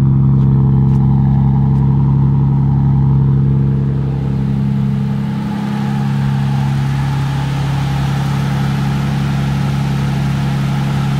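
Toyota 2JZ inline-six, swapped into a Nissan 240SX S13, idling steadily.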